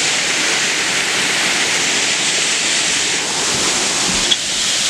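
Amicalola Falls, a mountain waterfall, rushing in a loud, steady roar of falling water.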